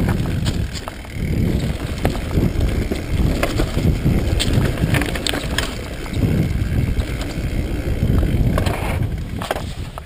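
Mountain bike rolling fast down a rocky dirt trail: tyres crunching over gravel and stones, with scattered rattling clicks from the bike and wind buffeting the microphone. The noise eases off near the end.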